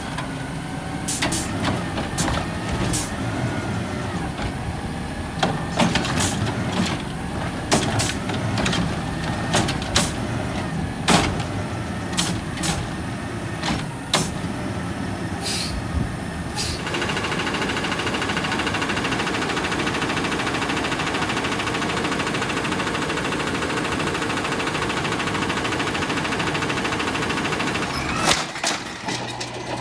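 Automated side-loader garbage truck's lift arm dumping a cart: repeated metallic clanks and bangs of the cart and arm over the running truck engine, with a hydraulic whine that rises and falls. About seventeen seconds in the clanking stops and a steady engine and hydraulic hum carries on, with a few more clanks near the end.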